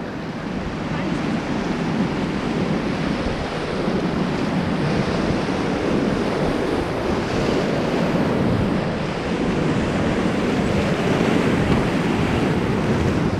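Fast river whitewater rushing steadily around a raft, with wind buffeting the microphone.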